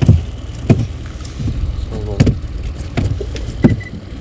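Hollow knocks on a small boat's hull, about one every three-quarters of a second, over a low steady rumble.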